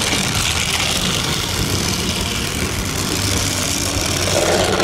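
Small electric motor and plastic gears of a battery-powered toy bus running steadily along a plastic track, a continuous whirring hum with rattling from the track.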